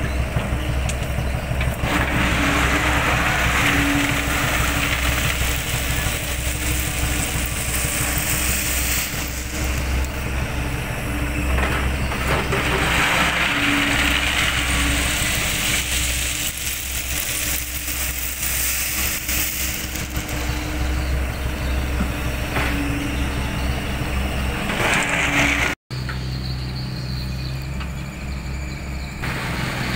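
Compact excavator's diesel engine running steadily while it works its bucket in a gravel pile, the higher noise swelling and fading every several seconds. A cut near the end changes it to a steadier engine sound.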